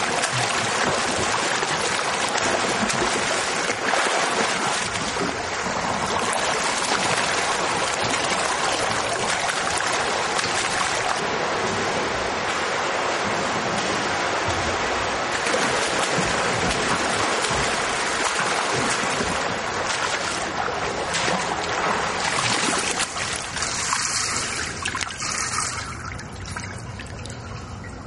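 Water splashing and churning from a swimmer doing front crawl in a swimming pool, dying away near the end.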